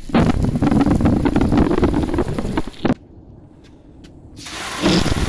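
Water from a garden hose spraying onto a turret security camera, heard as a rough, crackling rush. It cuts off suddenly about three seconds in, goes quieter for a moment, then builds back up near the end.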